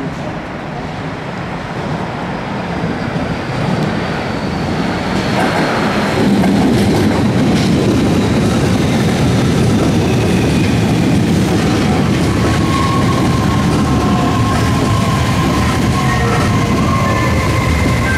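Kobe Municipal Subway 6000-series electric train running in and slowing to a stop at a station, with wheels clacking over the rails. It gets louder about six seconds in, and from about twelve seconds in high steady whining tones sound as it brakes.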